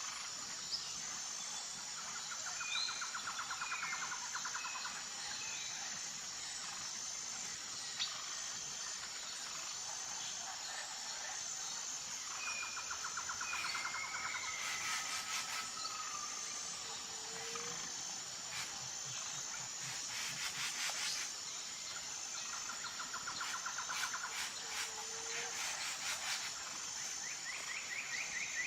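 Outdoor nature ambience: a steady, pulsing high-pitched insect drone, with scattered short bird chirps and a trilling call that comes back three times.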